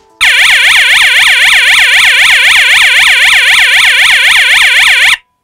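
LogiCO2 CO2 safety system's alarm sounder going off, a loud electronic siren sweeping rapidly up and down several times a second. It cuts off abruptly near the end. This is an alarm state that has to be cleared with the reset button on the central unit.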